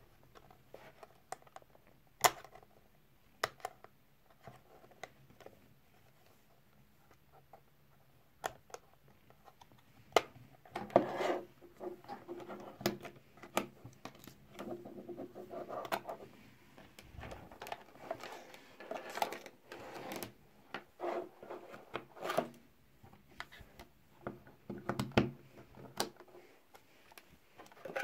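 Handling noise from a plastic DT33A digital multimeter and its test leads: scattered clicks and taps with stretches of rustling between them, a few sharp clicks standing out.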